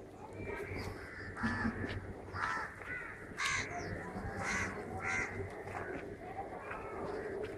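Crows cawing, a string of harsh calls about one a second.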